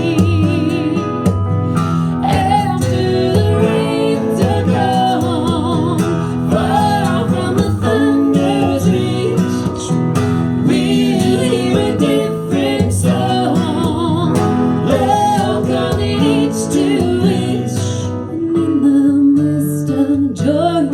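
Instrumental break in a live folk song: an electric guitar plays a melodic lead with bent, wavering notes over acoustic guitar accompaniment.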